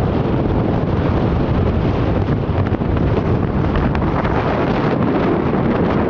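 Strong wind blowing straight onto the microphone: a loud, steady rumble of wind noise.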